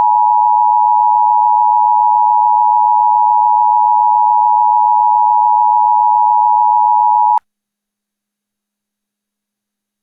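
Emergency alert attention tone: one loud, steady electronic tone held for about seven seconds that cuts off abruptly with a click, the signal that announces an emergency alert message.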